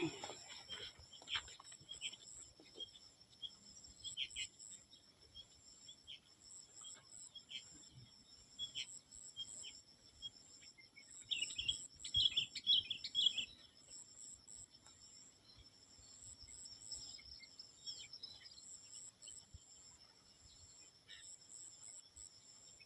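Rural insects keeping up a steady, high-pitched drone, with birds chirping over it in short calls and a busier flurry of chirps around the middle.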